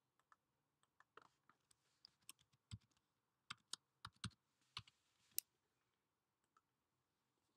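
Faint keystrokes on a computer keyboard as a login password is typed: irregular sharp key clicks for about the first five seconds, the loudest click a little past five seconds.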